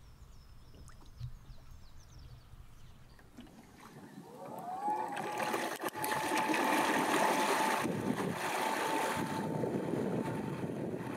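Faint water sounds at first, then an electric outboard motor spins up, its whine rising in pitch and settling into a steady high whine over the rush and splash of the tender's wake.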